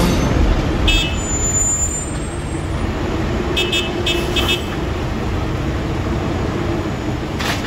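Asphalt milling machine and heavy diesel trucks working: a steady rumble of engines and machinery as milled asphalt is loaded into a semi dump trailer. A few short high beeps sound about a second in and again around four seconds in.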